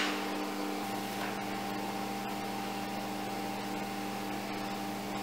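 Steady electrical hum with a layer of hiss: room tone. A faint higher tone joins about a second in.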